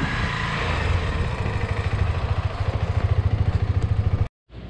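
Royal Enfield Himalayan 411's single-cylinder engine idling with an even, rapid pulse. The sound cuts off abruptly near the end.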